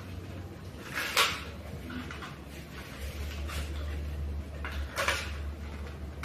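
Scissors snipping through a thin plastic PET bottle, with the plastic crackling and crinkling in short bursts; the loudest cut comes about a second in and another near five seconds. A low steady hum runs underneath.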